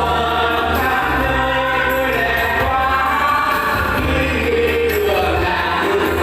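A small group of singers performing a Vietnamese song together over instrumental backing with a steady bass line.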